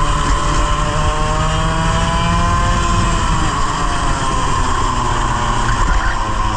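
100cc racing kart engine running hard at speed, its revs easing slightly and then climbing again, with a steady low rumble underneath. From mid-race the driver reports that the engine drops revs in every corner and lacks power until partway down the straight.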